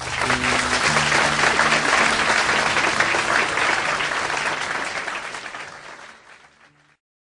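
Audience applause at the end of a live song, with a few low held instrument notes ringing underneath. The applause fades out and the sound cuts to silence near the end.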